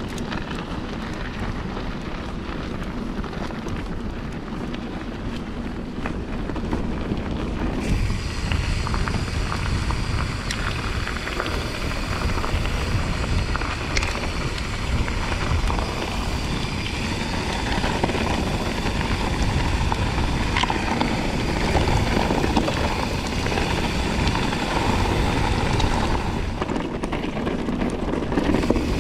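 Mountain bike riding a rough gravel and stone track: wind buffeting the camera microphone, with the tyres crunching over loose stones and the bike rattling over bumps. The rattle grows plainer from about eight seconds in, with a few sharp knocks.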